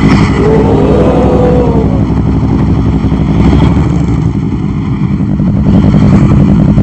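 Motorcycle engines idling in stopped traffic, a steady low running sound close by. About a second in, a brief wavering whine from another vehicle passes over it.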